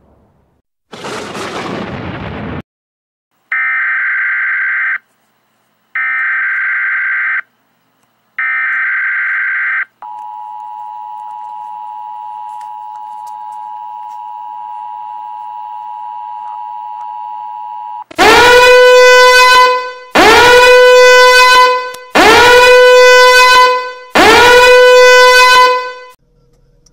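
Emergency Alert System-style warning tones: a short burst of noise, then three warbling data bursts, then the steady two-tone attention signal held for about eight seconds, then four loud, long horn-like alarm blasts, each rising into pitch at the start.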